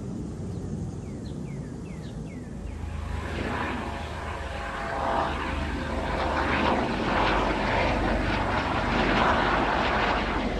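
US Coast Guard MH-65 Dolphin helicopter flying over, its rotor and engine noise swelling louder from about three seconds in. A bird chirps a few times before the helicopter noise builds.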